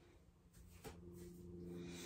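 Near silence, with a faint slow exhale through the nose starting about a second in, after a soft click.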